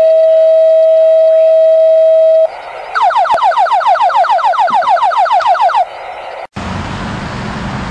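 Fire dispatch radio alert tones: the long, steady second tone of a two-tone sequential page, then after a short gap a fast series of falling sweeps, about eight a second, for nearly three seconds. Near the end it cuts to street traffic noise.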